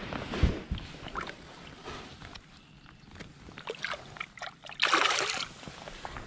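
Light knocks and clicks of handling gear in a small fishing boat, with a short splash of water about five seconds in.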